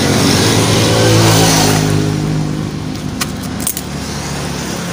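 A plastic mailer package being handled and torn open by hand, with crinkling and a few sharp clicks, over the steady hum of a motor vehicle engine running nearby, loudest about a second in and easing off after about two seconds.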